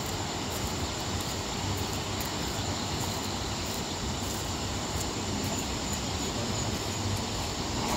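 Steady rushing noise of the swollen Sutlej river in flood, an even, unbroken roar with a low rumble underneath.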